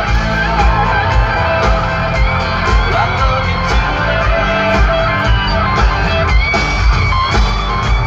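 Live band playing country rock loudly through a concert sound system, guitar over a steady beat.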